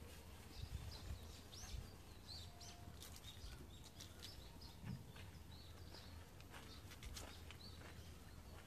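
Faint chirping of small birds: many short, high chirps scattered throughout, over a low rumble.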